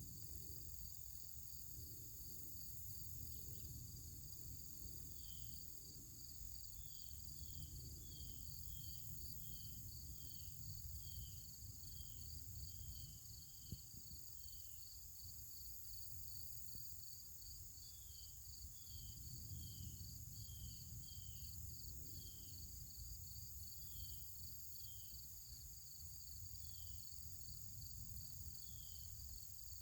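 Outdoor insect chorus: a steady high-pitched drone with a fast, even pulsing, and a short falling chirp repeated about once a second in two runs. Low rumble underneath throughout.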